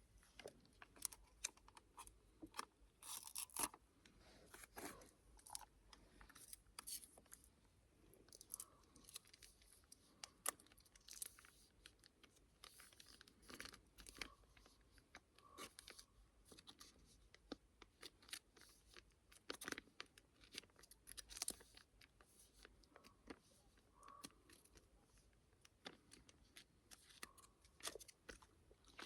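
Faint, irregular rustling, tearing and clicking of plastic packaging as a bagged salad kit is opened and handled.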